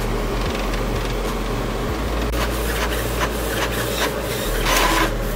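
Canon Pixma MG2522 inkjet printer printing a test page: the print-head carriage shuttling and paper feeding make a steady mechanical running with light clicks, and a louder burst comes near the end.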